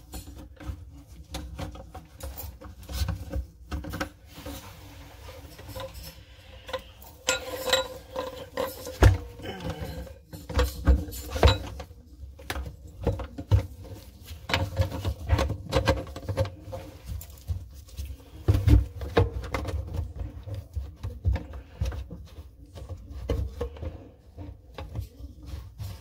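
A plastic sink drain trap and its slip nut and washer being handled and fitted onto the drain tailpiece: irregular clicks, taps and knocks of plastic parts, with dull low bumps.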